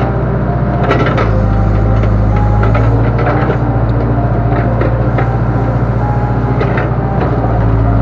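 Backhoe loader's diesel engine running steadily while the backhoe is worked, with scattered clicks and knocks.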